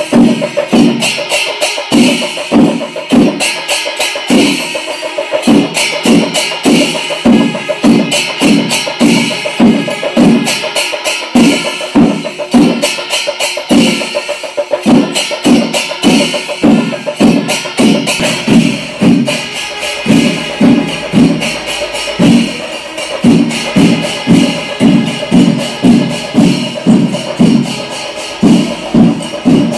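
Music with a steady pounding drum beat and jingling percussion.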